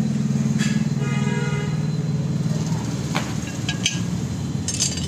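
Bench drill press motor running with a steady low hum that fades about halfway through, with sharp metallic clinks of small steel pieces being handled, several of them close together near the end.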